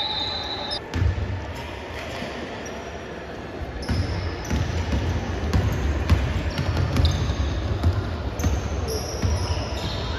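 Basketball game play: the ball bouncing on a hard court with repeated low thuds, short high squeaks and scattered voices.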